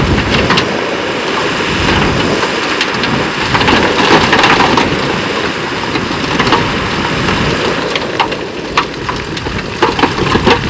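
Loose rock fill clattering and tumbling as heavy machinery pushes or dumps it: many sharp knocks over a steady rushing noise, busiest about a third of the way in and again near the end.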